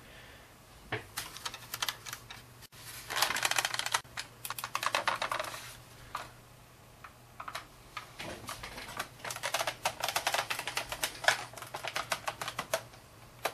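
Typing on a computer keyboard: several runs of rapid key clicks with short pauses between them.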